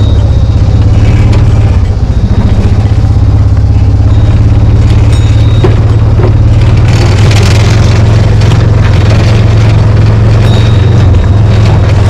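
Engine of a Kubota utility vehicle running loud and steady while the vehicle drives along.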